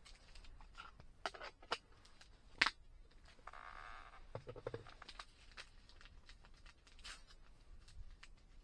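Hands handling small items: a few sharp clicks and taps, the loudest about two and a half seconds in, and a brief rustle just after, then softer fiddling sounds.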